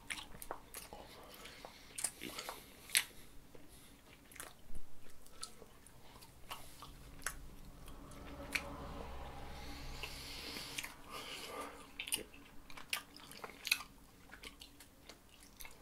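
Chewing a very tough, chewy candy: irregular clicks and smacks of the jaws working hard on it.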